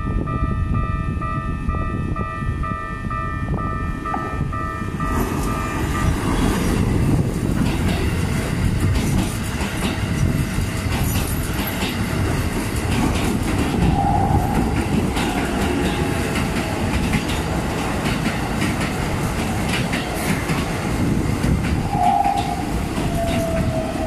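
Keikyu electric train passing over a level crossing, its wheels clattering over the rail joints from about five seconds in. Before that, steady tones sound, fitting the crossing's warning bell.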